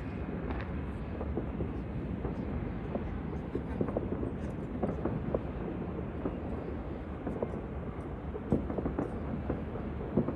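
Fireworks display: a continuous rumble of shell bursts with many sharp cracks and pops over it, the loudest cracks near the end.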